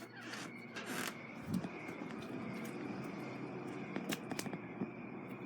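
Handling noise as a phone is carried and set in place: rustling and scraping with a few sharp knocks, over a steady noisy hum.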